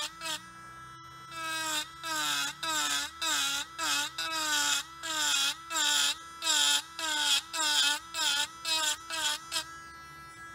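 Dremel Stylo rotary tool with a cone-shaped cutter carving a wooden bowl rim in short repeated strokes, about two a second: the motor's whine dips in pitch under load, with a gritty cutting hiss on each pass. Near the end the tool runs free with a steady whine.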